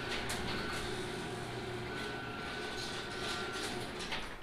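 Turbocharged, junkyard-rebuilt 5.3 L LS V8 running steadily on its first run since the rebuild.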